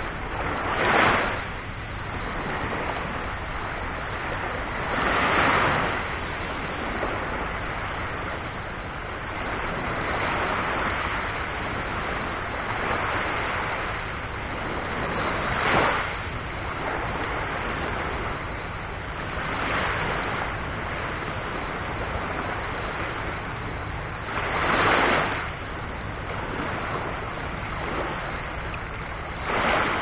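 Small surf on a calm sea: low waves breaking and washing up the shore over a steady hiss of water. The louder breakers come every few seconds, about six of them.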